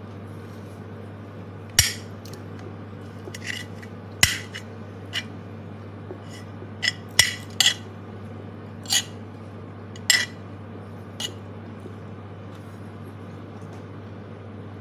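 Metal spoon clinking and scraping against a ceramic dinner plate while scooping rice, about ten short, irregular clinks, most of them in the first ten seconds, over a steady low hum.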